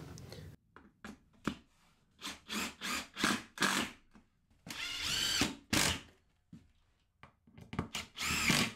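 Cordless drill-driver run in a string of short bursts, then a longer run about five seconds in with its motor pitch sweeping, and two more short runs near the end, driving screws to fix a clamp rack to the wall.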